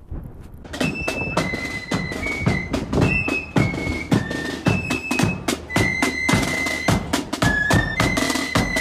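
Marching flute band: flutes playing a tune over snare and bass drums, starting under a second in.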